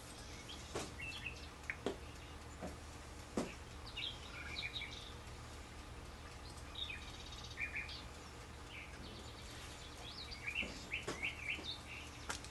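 Birds chirping with many short, high calls, while a few sharp clicks and taps come from spice containers being handled over a small bowl. A steady low hum sits underneath.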